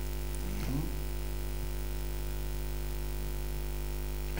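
Steady low electrical hum, a mains hum on the recording, with no speech over it.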